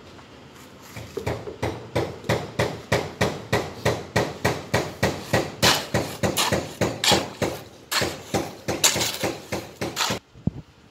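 A hoe working wet cement mix in a steel wheelbarrow tray, striking and scraping the mix and the metal in quick, even strokes, about three a second. The strokes begin about a second in and stop about ten seconds in.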